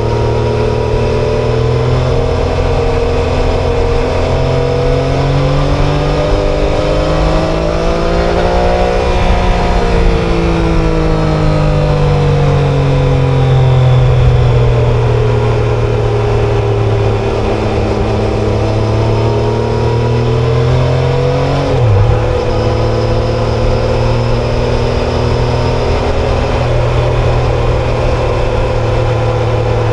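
Triumph Tiger Sport 660's inline three-cylinder engine running under way, its pitch rising and easing with the throttle. It climbs again and drops suddenly about two-thirds of the way through, an upshift, then holds steady.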